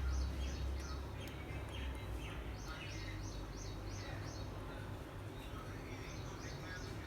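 Parrot chirping: runs of quick high chirps, several a second, mixed with short falling whistles, over a low hum.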